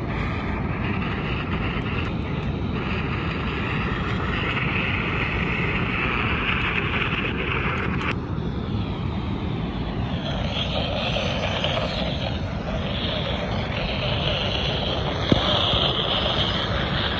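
Grundig portable shortwave receiver tuned near 6.1 MHz giving steady static and hiss from its speaker, the broadcast faded down into the noise. The hiss swells and thins in the upper range, typical of shortwave fading.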